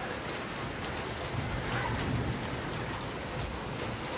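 Steady rain falling on a tiled courtyard and a parked car, with a few sharper single drops standing out.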